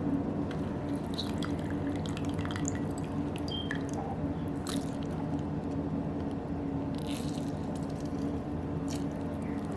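Liquid dripping, with scattered small clicks and taps over a faint steady hum.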